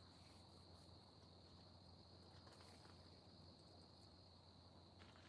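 Near silence: a faint, steady, high-pitched chirping of crickets at night, over a low steady hum.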